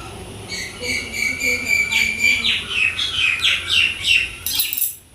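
A songbird singing: a held whistled note, then a run of quick notes falling in pitch, about two or three a second, ending in a short harsh burst.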